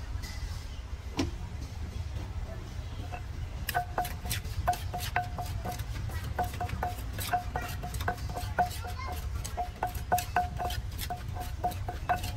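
Wooden pestle pounding shredded green papaya in a clay mortar, with a spoon turning the mix: a run of uneven knocks, about two or three a second, each with a short ring, starting a few seconds in.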